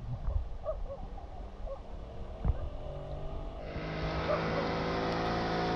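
Motorboat engine running at a steady speed. Its drone comes in about three seconds in and then stays loud and even, over low wind rumble on the microphone.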